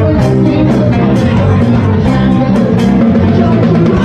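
Band music played loudly, with drums keeping a steady beat under guitar.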